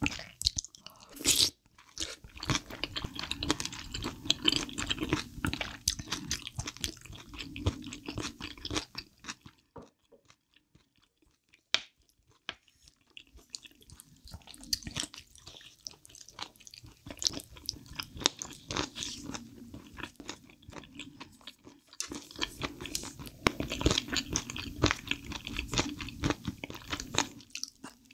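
Close-miked chewing of a person eating spicy soup-style chicken feet and steamed egg: dense wet, crunchy mouth clicks. There is a near-silent pause of a few seconds about ten seconds in, then the chewing resumes.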